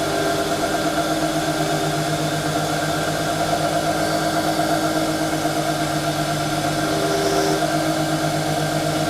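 Steady machine hum from a motor running at constant speed.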